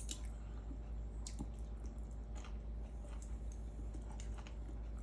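Close, wet chewing and mouth sounds of someone eating fish, with scattered small clicks, over a steady low hum.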